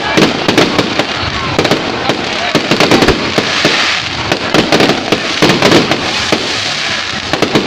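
Aerial fireworks bursting overhead: a dense, continuous run of bangs, pops and crackle, with a thicker stretch of crackling about halfway through.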